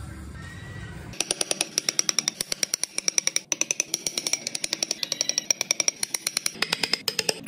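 A wood-carving chisel cutting into wood with fast, evenly spaced strikes, several a second, starting about a second in after a short low rumble.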